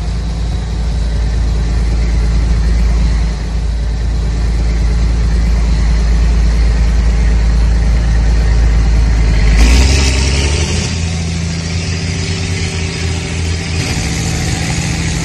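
A tractor engine running steadily with a deep, even hum. About ten seconds in, a short burst of hiss comes and the engine note shifts to a slightly higher, rougher pitch, which it holds.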